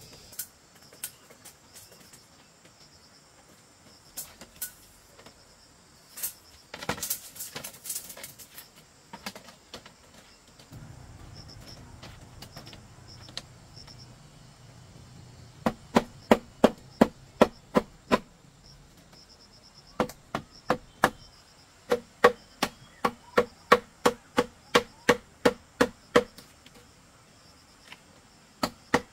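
A tool striking bamboo in quick, even blows, about three a second, in two runs through the second half, each blow with a short hollow ring; a few scattered knocks come before. Insects buzz steadily behind.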